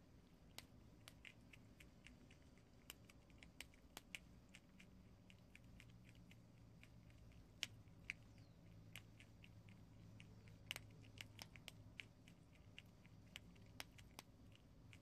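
Prairie dog nibbling and crunching dry, uncooked instant ramen noodles: many small crisp crunches at an irregular pace, a couple of them sharper. A faint steady low hum lies underneath.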